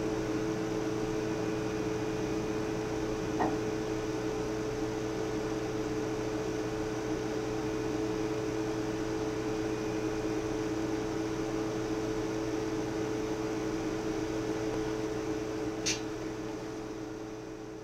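Steady electrical hum with two held tones over an even hiss, like running equipment. There is a faint click about three and a half seconds in and a sharper tick near the end, and the sound starts to fade out at the close.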